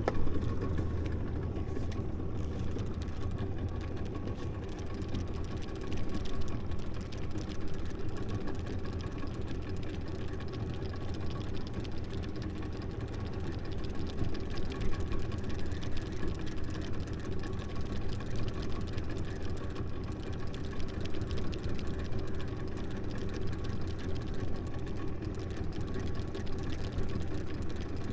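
Boat engine running steadily, a constant hum with no change in pitch.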